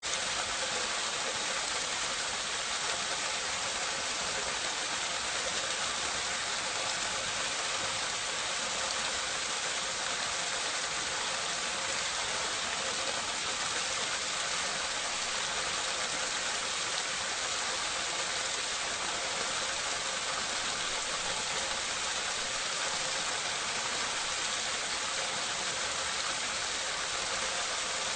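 Water pouring steadily into a drain, recorded close up: an even, unbroken rushing splash that starts abruptly and keeps the same level.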